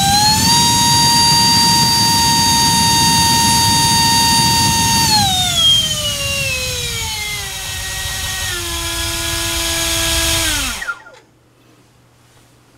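60 mm electric ducted fan driven by a GoolRC 2850 4450 kV inrunner motor on a 4-cell pack, whining loud and high at full throttle in a thrust test run. It finishes spinning up in the first half second, holds one steady pitch for about four seconds, is throttled down in steps, and cuts off about eleven seconds in.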